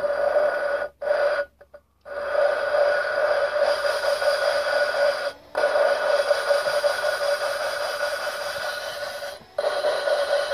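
Electric drill spinning a valve against its seat in a cylinder head for valve lapping, its motor whining steadily at one pitch. The drill stops briefly a few times and starts again.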